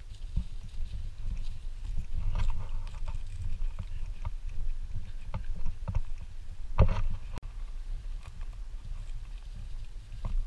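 Footsteps on dry fallen leaves and a dirt trail: irregular crunches over a steady low rumble, with one louder crunch about seven seconds in.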